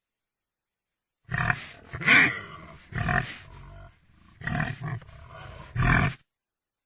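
Pig grunting: a run of about six rough grunts, starting about a second in and stopping near the end.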